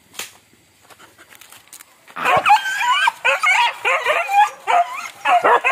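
Hunting dogs yelping and baying on a wild boar chase: rapid, high-pitched, closely repeated cries that break out about two seconds in and keep going.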